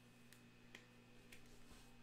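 Near silence: a steady low electrical hum with three faint light clicks, from trading cards being handled.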